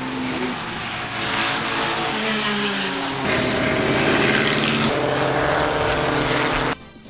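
Vintage racing car engines running at speed as several cars pass on the track, the engine notes shifting with each pass. The sound changes abruptly twice and cuts off sharply near the end.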